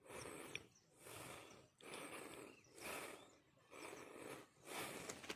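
Russell's viper hissing in a steady rhythm, one breathy hiss about every second, as the snake is being steered into a bag.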